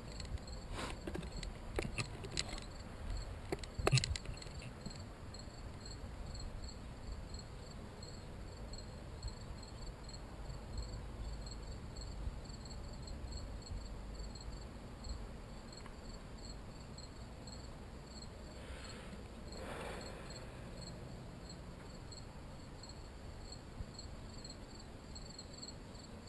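A steady chorus of crickets chirping in an even, rapid pulse, with a few light clicks and knocks in the first few seconds.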